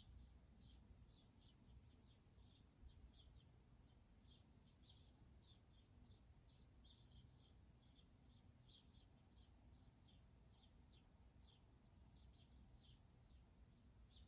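Near silence: faint bird chirping, short high chirps coming several times a second in an irregular pattern, over a low steady hum.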